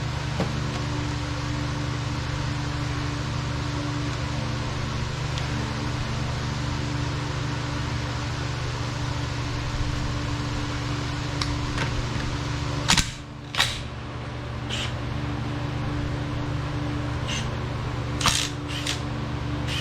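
Steady low mechanical hum, like a running fan, with a few sharp clicks and knocks from tools or parts being handled in the second half, the loudest two close together about thirteen seconds in.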